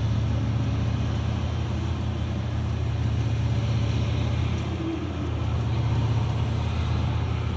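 Large diesel engines of a mining wheel loader and haul truck running, a steady low drone that dips briefly about five seconds in.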